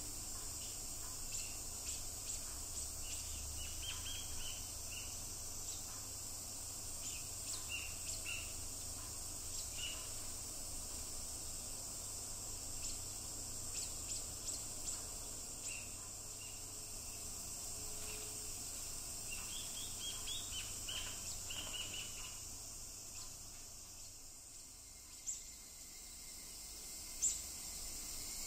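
Scattered short, high chirps from small birds over a steady high-pitched drone of insects, with two sharp clicks near the end.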